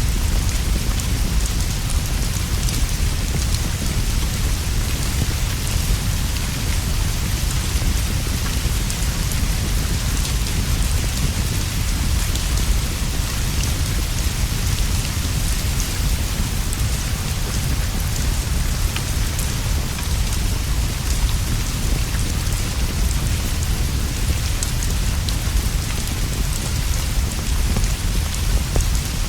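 Steady rainfall, an even hiss with a constant low rumble underneath and faint scattered ticks of drops.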